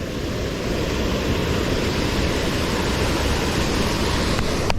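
Creek water rushing steadily where it falls over a small dam into a pool.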